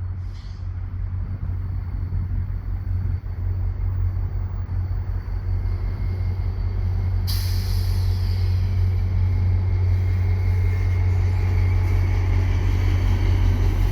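Via Rail F40PH-2 diesel locomotive approaching and passing, its engine drone steady and low and growing louder. About seven seconds in, a high hiss with a thin, steady high whine joins it as the train comes by on the curve.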